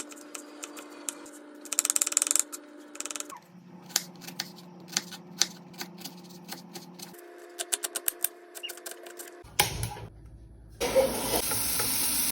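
Cooking sounds: quick clicks and knocks of utensils over a steady hum, in several short cuts, then loud sizzling of food frying in a hot pan starting about eleven seconds in.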